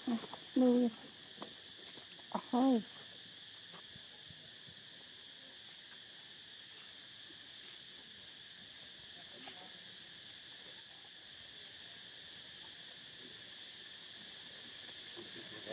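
Steady high insect chorus droning throughout, with two short pitched calls, about half a second in and again about two and a half seconds in.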